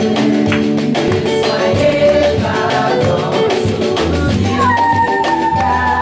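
A woman singing a worship song into a microphone over instrumental accompaniment with a steady beat. Near the end she slides up to a long, wavering held note.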